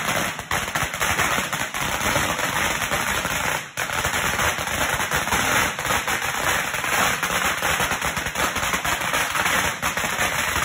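A long hanging string of firecrackers going off in a dense, continuous rapid-fire crackle of bangs, with a brief drop about three and a half seconds in.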